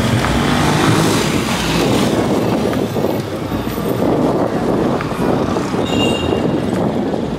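Busy city street traffic: vehicle engines and tyres over a steady street din, with a few short high tones about six seconds in.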